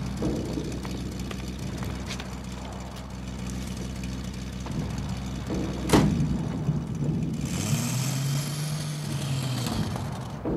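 A vintage sedan's engine running at idle, with a car door slammed shut about six seconds in. Then the engine note rises and falls as the car moves off.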